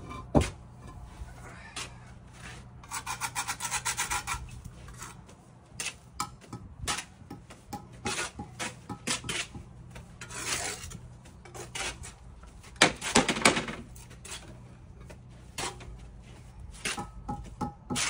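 Bricklaying trowels scraping mortar and knocking on concrete blocks: a run of sharp taps and clinks with scrapes, including a fast rasping scrape of about a second, three seconds in.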